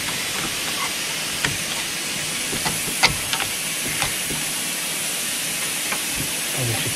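Steady hiss with a few sharp metallic clicks, the loudest about three seconds in, as a rear brake caliper is prised off its disc by hand.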